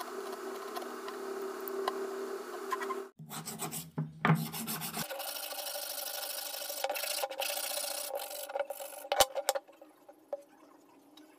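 Carving stone being sanded and rubbed by hand: a steady scratchy rasping in several stretches, with a sharp knock about nine seconds in. The rubbing stops over the last second or so.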